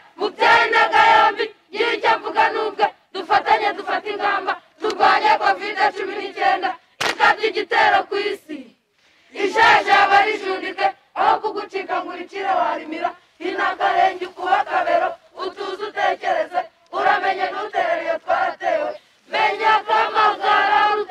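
A group of young voices chanting together in unison, in short shouted phrases of about a second each, separated by brief pauses.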